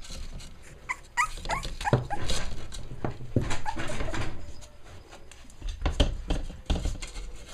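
Five-week-old Cavalier King Charles Spaniel puppies giving a quick run of short, high-pitched yips and whimpers about a second in. After that come scuffling, rustling and soft bumps as they clamber about.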